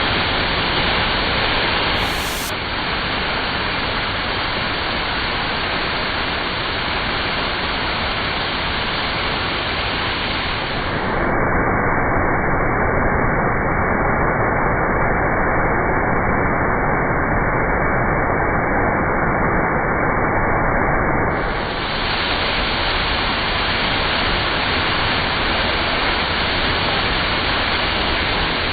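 A 20-metre waterfall in strong flow: a loud, steady rush of falling water.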